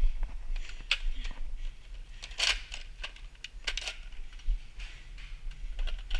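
Footsteps and the rustle of a body-worn camera being carried at a quick walk, with scattered light clicks and rattles, the loudest about a second in and about two and a half seconds in.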